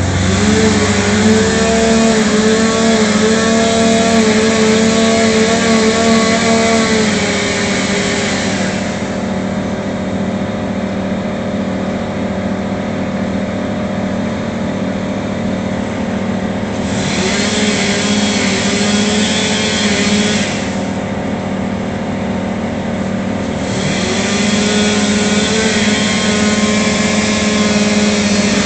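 An engine running continuously. It works hard in three stretches, with a higher steady note and harsh noise, and eases off in between.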